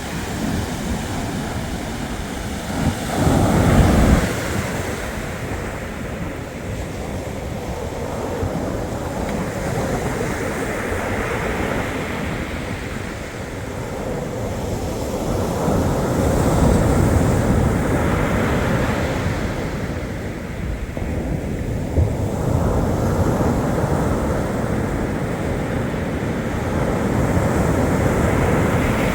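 Black Sea surf washing onto the shore, a steady rush that swells and falls back as waves come in, with a short, louder surge about three seconds in.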